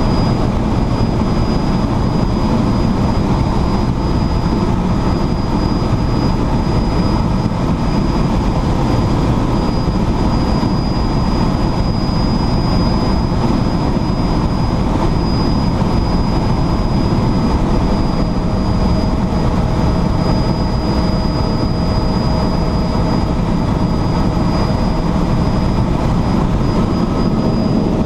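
Helicopter in flight: a steady, loud rotor and engine drone with a thin high whine held throughout.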